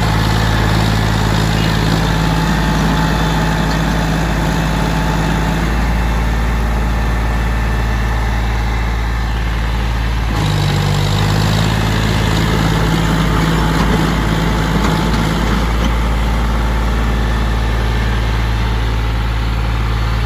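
A John Deere tractor's diesel engine running steadily under load as it pulls a loaded trailer through soft mud. The tone changes abruptly about halfway through.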